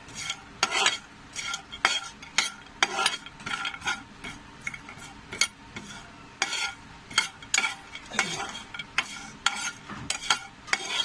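Crushed dry ginger pieces being stirred and turned in a hot dry pan: irregular scraping and clattering strokes, one to three a second, over a faint steady hiss. They are being dry-roasted on a low flame, with no oil.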